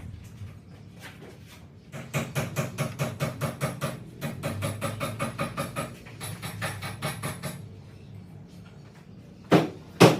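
Tool work on a tire: a fast, even run of strokes, about five a second, lasting several seconds, then two loud knocks near the end.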